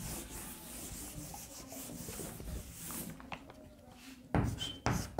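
Scratchy rubbing on a writing surface for about three seconds, then it stops; two short, dull thuds near the end.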